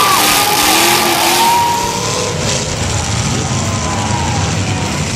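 Demolition derby cars' engines revving, their pitch rising and falling over the first couple of seconds, then running on as a steadier low rumble under broad noise.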